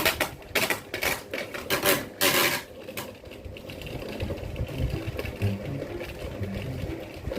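Ceiling fan running with a steady low motor hum. Several short knocks and rattles come in the first three seconds.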